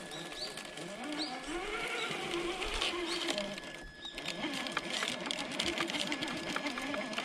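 Traxxas TRX-4 RC crawler's electric motor and geared drivetrain whining as it crawls up a granite boulder, the pitch rising and falling with the throttle. Light ticks and scrapes from the tyres on the rock come in during the second half.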